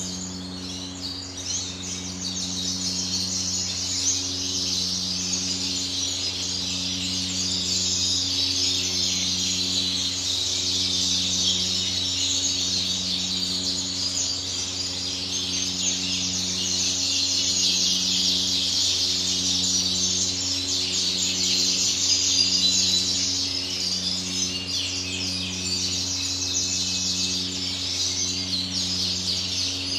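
Many small cage birds chirping and twittering continuously in a bird room. Under them runs a steady low mechanical hum, with a drone that pulses about every second and a half to two seconds.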